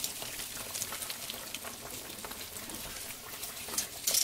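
Hot oil bubbling and crackling hard around a breaded pork cutlet frying in a small pan, a steady hiss full of small pops, with a louder burst of crackle just before the end.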